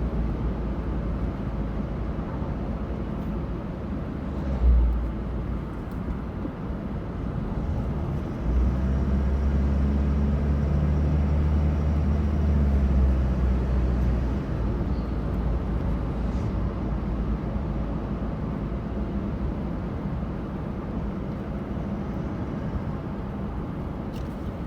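A road vehicle being driven, its engine and tyre noise running steadily. There is a brief thump about five seconds in, and a deeper engine hum from about eight to fourteen seconds in.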